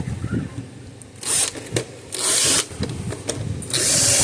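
A power screwdriver driving screws back into a fence charger's case in three short bursts, about a second apart.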